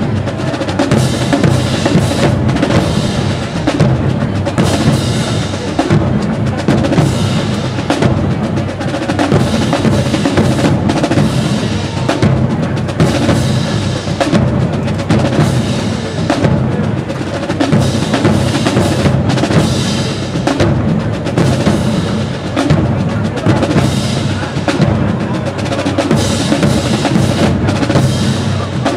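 HBCU show-style marching band playing on the field, its drumline's bass and snare drums prominent in a steady, driving beat.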